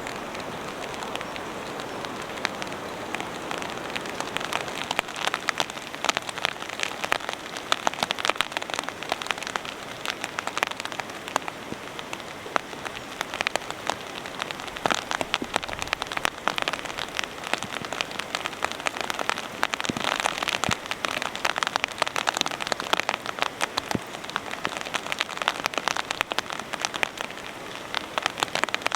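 Heavy rain falling steadily, with many separate sharp drop hits close by.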